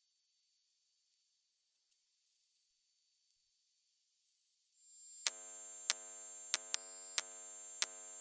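Electronic circuitry picked up through a coil pickup: a steady high-pitched whine that swells and dips in level, cutting off about five and a half seconds in, then sharp clicks at irregular intervals over a faint hiss.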